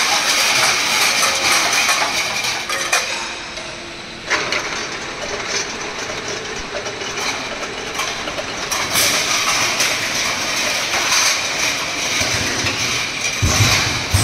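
Automatic twist-off vacuum capping line for glass jars running: steady mechanical whir from the conveyor and capping mechanisms with a faint steady tone, scattered sharp clicks of jars and parts, and a few low thuds near the end.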